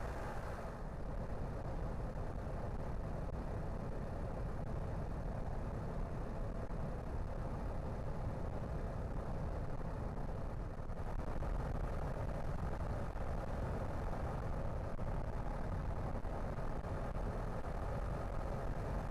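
Steady running noise of a car: a constant low rumble of engine and road, with no distinct events.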